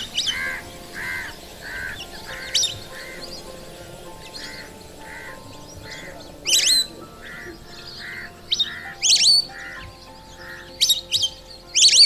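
Lesser whistling ducks calling: loud, sharp, high whistles come in short clusters about halfway through and near the end, over a steady run of softer bird calls about two a second and soft background music.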